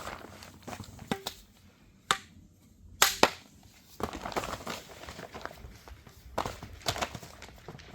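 Squash stems being knocked off kabocha-type squash: several sharp cracks, with rustling handling between them. A ripe stem snaps off cleanly with one blow.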